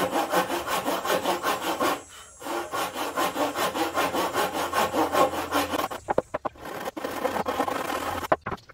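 Hand saw cutting across a softwood board in quick, even back-and-forth strokes, about four or five a second, with short pauses about two and six seconds in.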